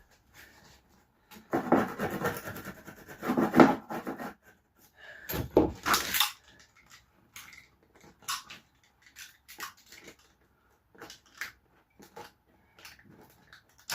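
Lino flooring being rubbed and scraped down with a hand tool, in two busy spells of quick strokes, followed by scattered light taps and knocks as it is worked into the corners.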